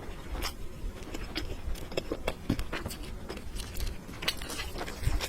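Close-miked eating sounds of a person eating noodles: chewing with many small irregular clicks and crackles.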